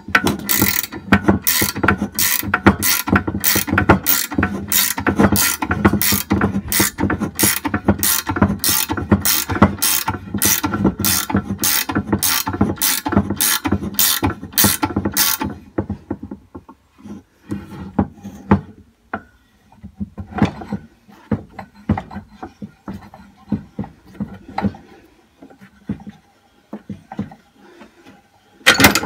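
Ratcheting combination spanner clicking as it is swung back and forth on the nut of a homemade bolt-and-socket puller, drawing a rubber silent block engine-mount bush out of its casing. The clicks come steadily, about twice a second, for roughly the first half; after that they turn fainter and irregular.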